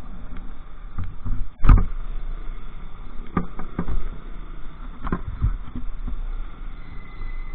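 Motorcycle riding noise picked up by a mounted camera: a steady low rumble of engine and wind, broken by several sharp thumps, the loudest about a second and a half in and a few more around three and a half and five seconds in.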